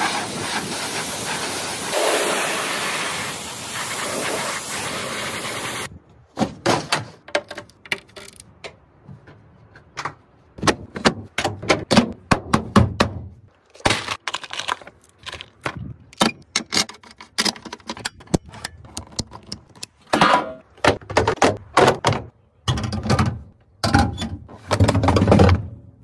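A pressure-washer jet hissing steadily as it rinses under a car's sill, cutting off suddenly about six seconds in. Then an irregular run of clunks, knocks and rattles as metal bolts, plastic clips and hand tools are handled during interior work.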